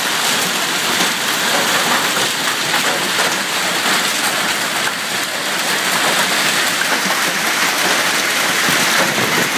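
Hailstorm: hail and heavy rain falling in a steady, dense patter.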